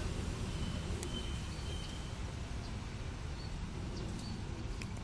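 Outdoor ambience: a low, steady rumble with a few short, high bird chirps over it.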